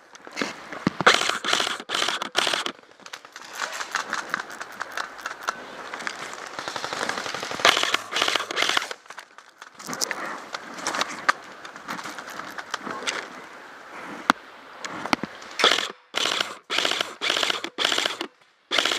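Airsoft electric guns (AEGs) firing in full-auto: rapid clicking bursts, a denser run of fire in the middle, then several short bursts in quick succession near the end.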